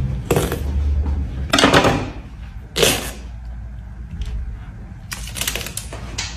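A melon pressed by hand and split open on a table: several short cracking and handling noises, the loudest about three seconds in. Near the end comes a quick run of rustling as a paper slip is pulled out.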